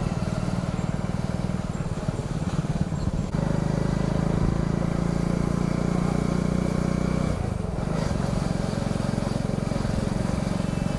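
Motor vehicle engine running as it drives along a road. The engine note steps up louder about three seconds in, falls away briefly near eight seconds, then holds steady again.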